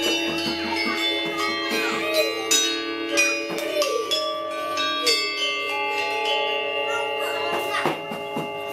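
Balinese gamelan metallophones struck in an uneven run of notes, the metal keys ringing on and overlapping, with children's voices calling over them.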